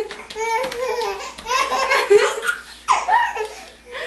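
A baby laughing hard in quick, high-pitched repeated bursts, breaking off briefly and starting again about three seconds in.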